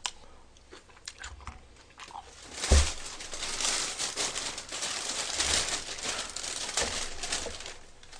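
Thin plastic bag crinkling and rustling as it is handled, starting with a thump about two and a half seconds in and stopping shortly before the end.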